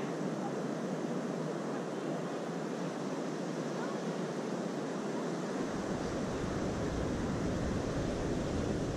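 Pacific surf breaking on a beach: a steady wash of waves. A low rumble comes in about halfway through.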